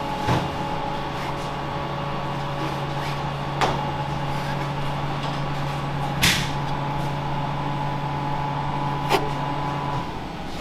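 A steady machine hum of kitchen equipment, cutting off shortly before the end, with four sharp knocks and a scrape as a metal bench scraper and knife come down on the wooden board through fresh pici dough.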